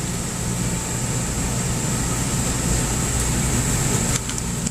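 Steady mechanical hum and whir of a running motor or fan with a low rumble, dropping in level with a click about four seconds in.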